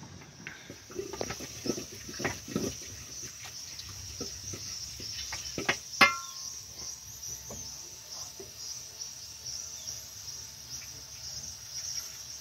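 Steady high-pitched insect chirring. Over it come scattered knocks and clicks of cooking utensils, and one sharp, ringing metal clink about six seconds in as a ladle works in a metal cooking pot.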